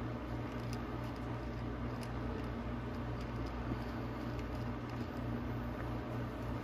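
Steady low hum with faint scrapes and a few light clicks as a gloved hand works a small battery back into its mount.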